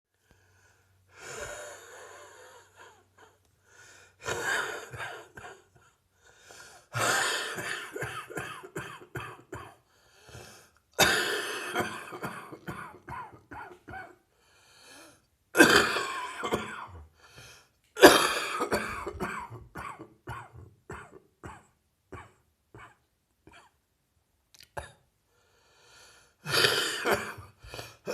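A person coughing hard in repeated fits from a heavy chest cold. Each fit opens with one strong cough and trails into a rapid run of shorter coughs. The loudest fits come about halfway through.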